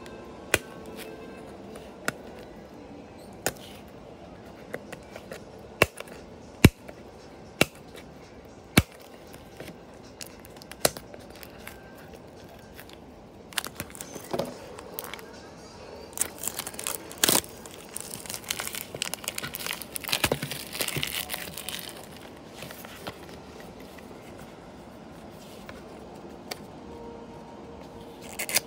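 Plastic wrapping on a cardboard model-bus box being handled and peeled. There are scattered sharp clicks and taps over the first ten seconds or so, then a long stretch of plastic crinkling and tearing in the middle, followed by quieter fiddling with the box.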